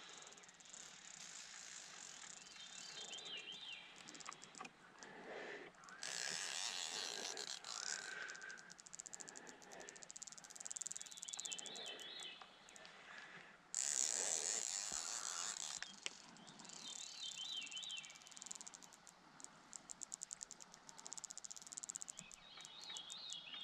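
Fly reel's ratchet drag buzzing in bursts, about six and fourteen seconds in, with runs of rapid clicking in between, as a hooked Atlantic salmon pulls line off the reel.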